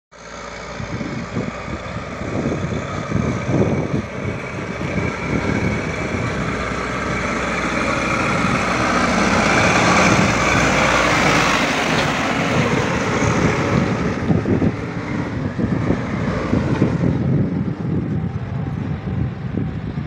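Caterpillar backhoe loader's diesel engine running as the machine drives along a paved road: it grows louder as it approaches, is loudest about halfway through as it passes close by, then fades as it moves away.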